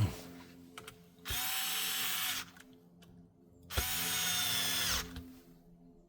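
A sharp knock, then a small power drill or electric screwdriver motor runs in two short bursts of about a second each, the second winding down in pitch as it stops.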